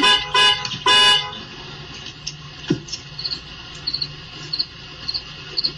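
Three loud, horn-like honks in the first second, then faint high chirps repeating about twice a second.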